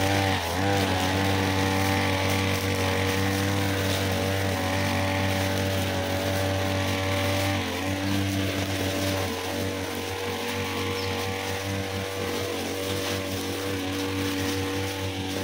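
Backpack brush cutter's two-stroke engine running steadily at high revs while its nylon trimmer line sweeps debris off a concrete road. The engine speed sags briefly about three times, and the sound grows a little quieter in the second half.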